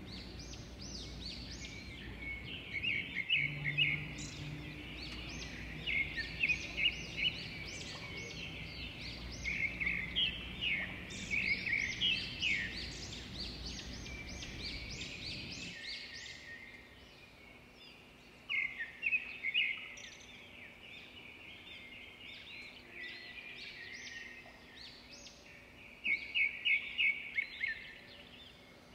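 Songbirds singing and chirping: repeated bursts of quick, high notes and short trills, over a low background rumble that stops a little past halfway through.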